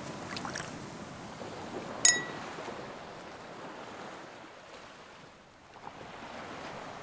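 Wine glasses clinking once in a toast: a single sharp clink with a short bright ring about two seconds in. Beneath it runs a steady wash of wind and sea noise, which fades down near the end.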